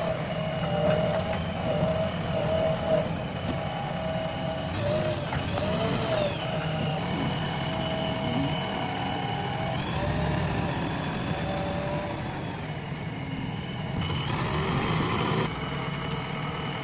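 JCB 3DX backhoe loader running under its diesel engine, a steady low rumble with a whine on top that shifts pitch now and then.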